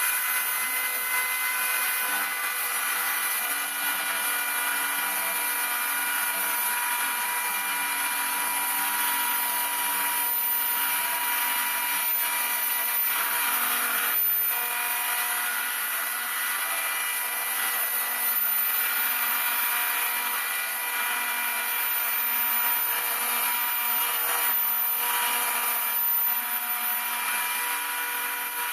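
Homemade CNC router milling aircraft wing ribs: the spindle gives a steady high whine as the cutter runs. Under it, short humming tones change pitch every fraction of a second as the axis motors move.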